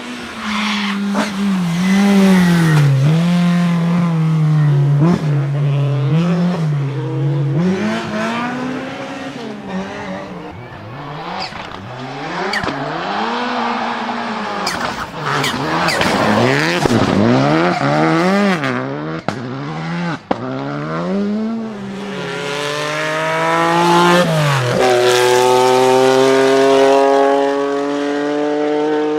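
Rally car engines run at full throttle, their pitch climbing and dropping sharply again and again as the drivers shift and lift, with tyre and gravel noise underneath. A few sharp cracks come in the middle, and near the end one engine holds a steady high pitch.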